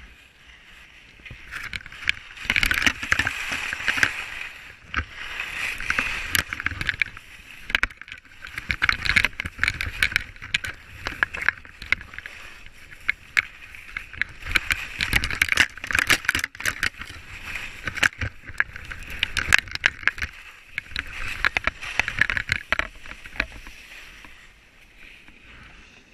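Skis sliding and carving turns on snow: a scraping hiss that swells and fades every two to three seconds with each turn, with frequent sharp clicks and clatter from the skis.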